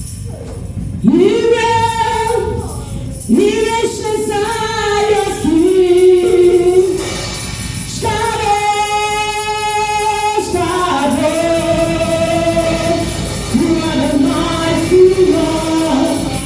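Gospel singing at a church service: a sung line in separate phrases, each ending on a long held note, over a steady low instrumental backing.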